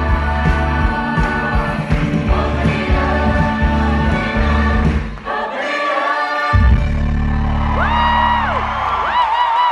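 A musical-theatre cast singing together in chorus over live band accompaniment during a curtain call. About five seconds in the bass drops out briefly, and near the end a high note is held with vibrato.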